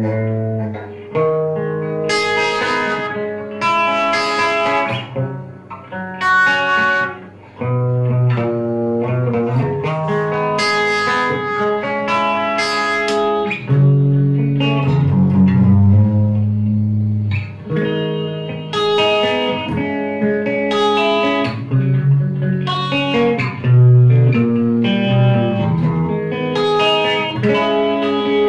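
Electric guitar played through a Boss ME-25 multi-effects pedal, trying out a patch freshly written in from the librarian software: melodic phrases of ringing, sustained notes with short breaks between phrases.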